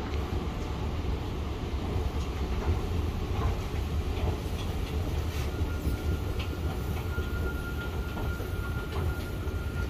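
Steady low mechanical rumble of a railway station, from a running escalator and trains standing at the platforms, with a faint steady high whine coming in about halfway through.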